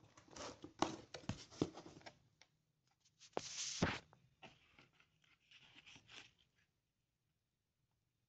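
Cardboard box flaps, plastic wrapping and a paper manual rustling and crinkling as they are handled, with a longer, louder rustle about three and a half seconds in. The rustling stops about two-thirds of the way through.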